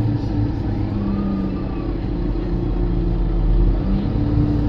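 Alexander Dennis Enviro 300 single-deck bus's diesel engine running under way, a steady low drone whose pitch shifts a little as it changes speed.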